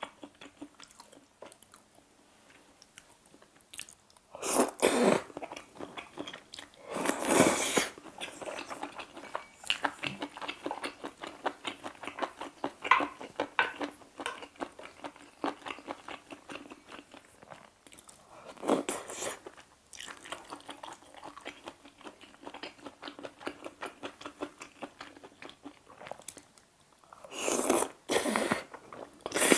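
Close-miked eating sounds of seafood aglio e olio pasta: four loud noodle slurps of about a second each, spread through, with steady wet chewing between them.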